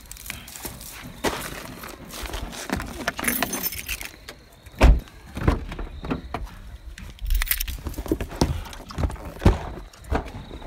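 Handling clatter while getting out of a parked car: irregular knocks, clicks and rustles, with footsteps and two heavier thuds about five and seven seconds in.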